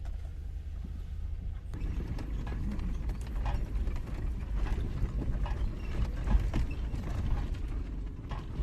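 Off-road vehicle driving over a rough trail: a steady low rumble with irregular knocks and clunks from the tyres, suspension and body, which grow busier about two seconds in.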